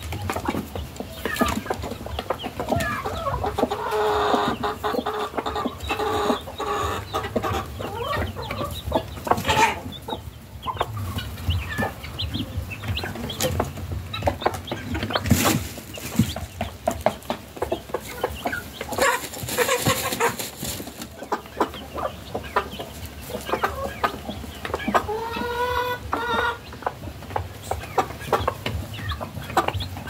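Domestic hens clucking in a farmyard, a busy run of short calls. A longer drawn-out call comes about 25 seconds in, and a brief noisy rustle comes a little past the middle.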